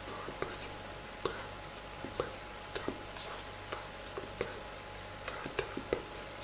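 Irregular soft clicks and taps from a person signing, about two or three a second, over a steady low electrical hum.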